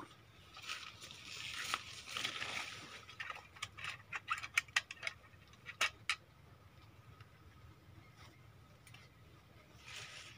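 Leaves and undergrowth rustling as hands work in the brush close to the ground, then a quick run of sharp clicks and snaps in the middle, with quieter rustling after.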